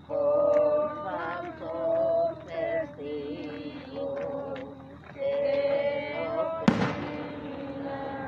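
A group of voices singing a hymn together in long, wavering held notes. About two-thirds of the way through, a single loud firework bang cracks out and echoes briefly.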